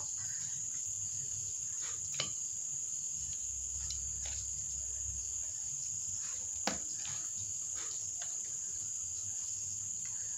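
Crickets chirring in one steady high-pitched trill, with a few light knocks of a plastic ladle against an enamel bowl, the clearest about two seconds in and again past the middle.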